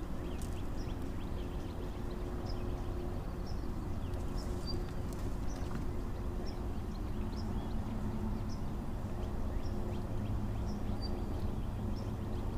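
Steady low outdoor rumble with a faint steady hum, over which short high chirps repeat about twice a second.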